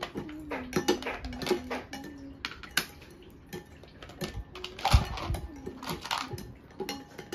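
Metal spoons clinking and scraping against glass bowls while jelly mixture is stirred, in irregular clinks with a few louder knocks about five and six seconds in.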